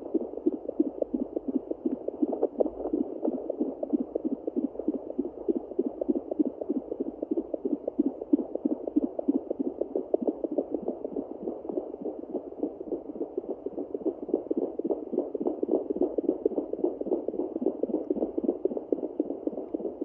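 Fetal Yorkie puppy heartbeat picked up through a Sonoline B fetal Doppler's speaker: a fast, even pulse, the rate display reading about 145 and climbing to about 172 beats a minute, which the owner takes to be one of the three puppies.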